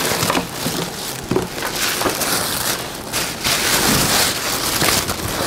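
White tissue wrapping paper rustling and crinkling as a wrapped bag is lifted out of a cardboard box. The sound grows louder about halfway through.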